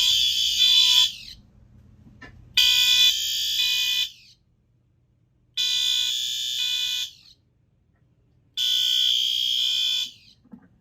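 Fire alarm horns and horn-strobes, including a Wheelock Fenwal MT-24-LSM and a System Sensor SpectrAlert Advance P4R, sounding together with a SpectrAlert Advance CHSR chime-strobe. They sound in a slow pulsed pattern: a blast of about a second and a half every three seconds, which is the panel's 20 beats-per-minute march-time signal.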